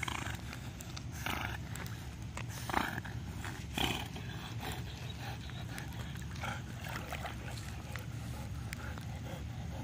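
Golden retriever swimming with a toy in its mouth, huffing short breaths, with a few louder puffs in the first four seconds and fainter ones after as it reaches the shallows. A steady low rumble runs underneath.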